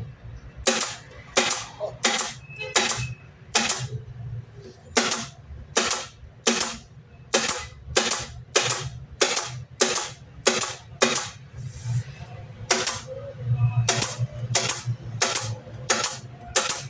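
Nail gun firing into MDF drawer parts: a run of sharp single shots, about two a second, over a low background hum.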